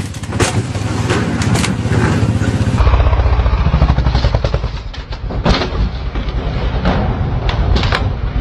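Dirt bike engine running hard under throttle, a fast steady pulsing, with several sharp clanks and thuds as the bike goes up a metal loading ramp and slams into a pickup bed.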